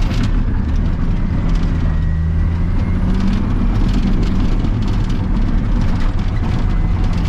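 Cat D7 bulldozer's diesel engine running steadily, with light intermittent clicking and rattling over it.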